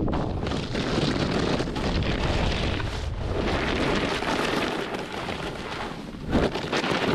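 Wind buffeting the microphone of a camera moving fast down a groomed ski slope, heard as a loud, dense rumble, with the hiss of snowboard edges carving snow underneath. A louder gust comes about six seconds in.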